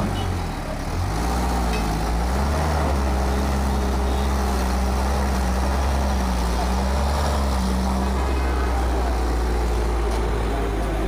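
Engine of a tow truck running close by: a deep, steady drone whose pitch wavers a little in the first few seconds and then holds steady.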